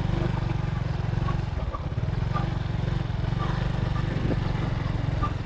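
Motorbike on the move: a steady low rumble of engine and wind on the microphone, unchanging throughout.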